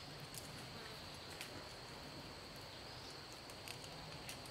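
Faint, steady high-pitched drone of insects, with a few soft clicks from the tree tether strap being handled around the trunk.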